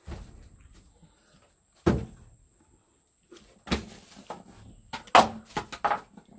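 A string of sharp knocks and thuds, like objects being set down or handled on a hard surface: spaced a couple of seconds apart at first, then coming quickly near the end.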